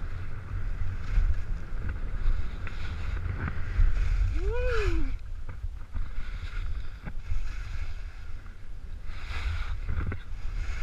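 Skis hissing and scraping over snow, swelling with each turn, under a heavy low rumble of wind on the camera's microphone at skiing speed. About four and a half seconds in, a short wordless voice cry rises and falls.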